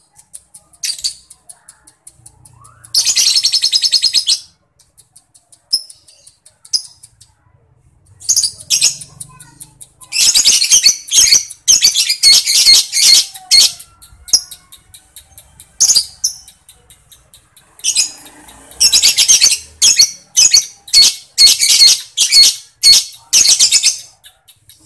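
Lovebird singing in shrill chattering bursts (ngekek): one long burst about three seconds in, dense runs around the middle, and a quick string of short repeated notes near the end.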